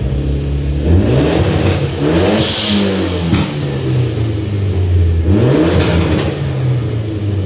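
Mitsubishi Lancer Evolution X's turbocharged 2.0-litre four-cylinder blipped twice from idle, each rev climbing and then falling back. A hiss of turbo flutter comes as each rev peaks and drops, and there is one sharp pop as the first rev falls away.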